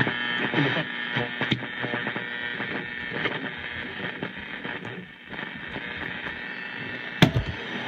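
Old radio being tuned across the dial: steady static with brief fragments of stations sliding in and out, and a sharp click about seven seconds in.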